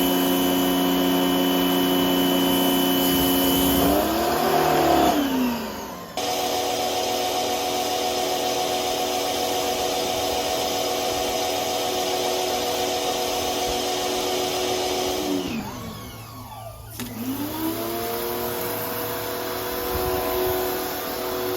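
Bauer electric pressure washer motor and pump running steadily with water spraying. Twice the motor winds down and stops as the trigger is let go, about five seconds in and again about sixteen seconds in, then starts up again and climbs back to speed.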